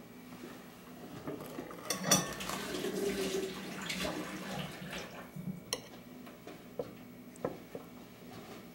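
Metal spoon scraping and clinking against a glass as juicy chopped fruit salad is spooned in, with soft wet shuffling of the fruit pieces. A sharp clink about two seconds in is the loudest, followed by a stretch of scraping and a few lighter clinks near the end.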